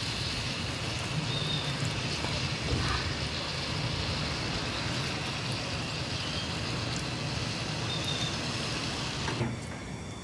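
Steady sizzling of squash-blossom filling and tortillas frying on a hot comal over a wood-fired stove, with a low rumble underneath. It drops off sharply near the end.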